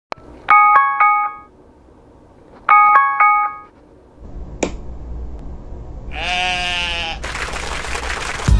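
A phone alarm plays a short run of four chiming notes twice, a couple of seconds apart, then a single click. About six seconds in comes a drawn-out waking yawn, followed by a long breathy exhale.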